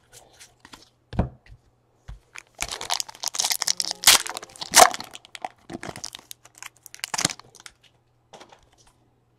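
Foil trading-card pack wrapper being torn open and crinkled, with light ticks of cards being handled before it. The crackling starts about two and a half seconds in, is sharpest twice around the middle, and fades out near the end.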